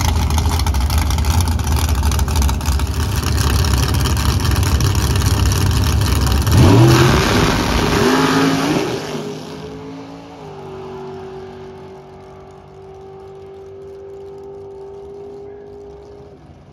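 Rear-engine dragster running loudly at the starting line, then launching about seven seconds in: the engine note climbs, shifts and climbs again, then fades into a steady distant drone as the car runs off down the track.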